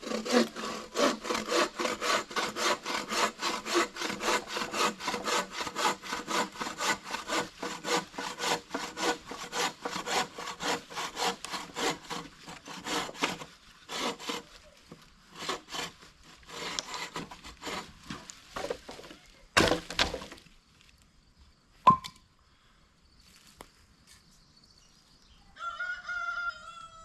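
Hand saw cutting a fallen branch, with steady back-and-forth strokes at about two to three a second. The strokes turn irregular and stop about 20 seconds in. A sharp click follows, and a short pitched call comes near the end.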